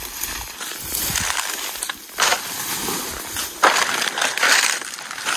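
Dry leaf litter and brittle undergrowth crunching and rustling underfoot in uneven bursts, loudest about two seconds in and again around four seconds.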